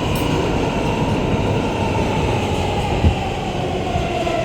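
R211A New York City subway car running, heard from inside the car: a steady rumble of wheels on track, with a motor whine that slowly falls in pitch. A single thump comes about three seconds in.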